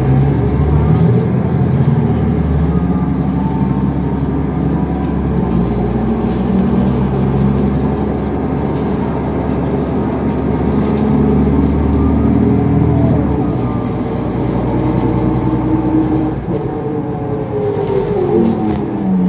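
Cummins ISL inline-six diesel engine of a New Flyer D40LF transit bus heard from inside the passenger cabin while the bus is under way. The engine note rises in the first couple of seconds as the bus pulls ahead, holds fairly steady through the middle, and falls near the end as the bus slows.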